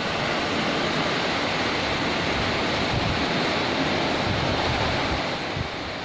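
Small sea waves breaking and washing up a sandy beach: a steady, even rush of surf.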